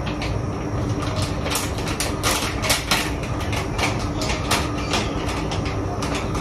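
Light, irregular clicks and knocks of kitchen work at the counter, roughly three a second, over a steady low rumble.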